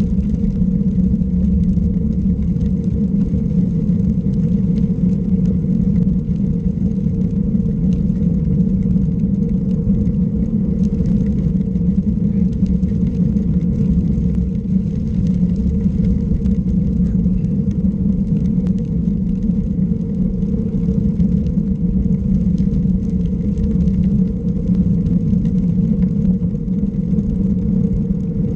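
Motor vehicle engine running at a steady cruising speed, a constant drone with a steady hum that holds unchanged throughout, picked up by a camera riding on the vehicle.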